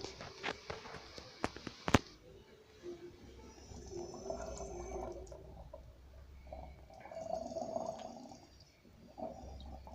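Darth Vader's respirator breathing: slow, hissing mechanical breaths that swell and fade about every three seconds. A few sharp clicks come in the first two seconds, the loudest a knock about two seconds in.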